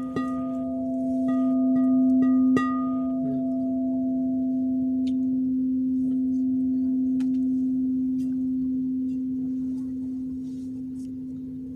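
Singing bowl ringing with a steady low hum and a few higher overtones. A quick run of light, evenly spaced clicks on the bowl builds it up over the first two and a half seconds. After that it rings on alone and slowly fades.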